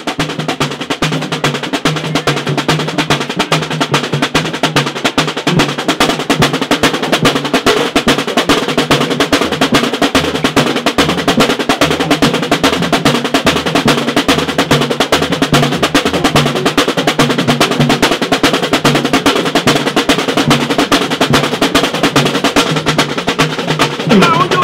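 Samba school bateria: a drum corps of snare drums and deep bass drums playing a fast, steady samba rhythm.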